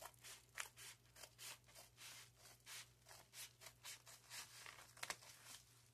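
Faint paper rustling and scratching as an envelope is handled and opened: a run of short, soft rustles, several a second, with a sharper crackle about five seconds in.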